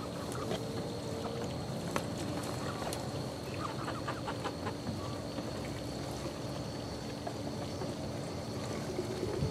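Young chickens, eleven weeks old, giving a few short clucks and peeps over a steady background hum, with a quick run of calls about four seconds in.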